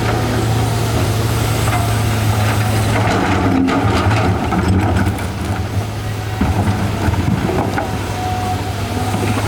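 Excavator's diesel engine running steadily at a low hum, with scattered knocks and scrapes from about halfway through.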